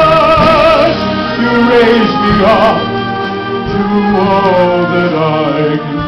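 Live symphonic band with bowed strings playing a slow ballad: a melody line with wide vibrato over held chords.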